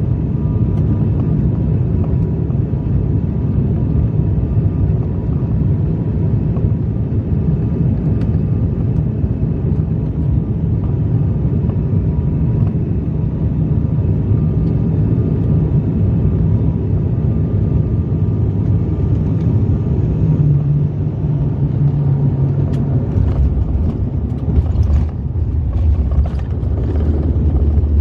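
Cabin noise of an ATR 72-600 turboprop airliner on final approach: a steady low drone from its twin Pratt & Whitney PW127 engines and propellers. About two-thirds of the way in, the touchdown on the runway brings a few knocks and a deeper rumble from the wheels.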